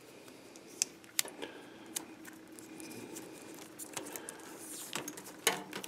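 Vinyl electrical tape being pulled off the roll and wrapped around plastic wire nuts on the wire connections, with several sharp small clicks and rattles of the nuts and wires being handled.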